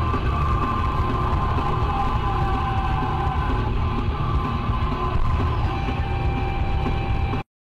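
Dashcam audio from inside a moving car: steady road and engine rumble with music from the car radio over it. The sound cuts off suddenly near the end.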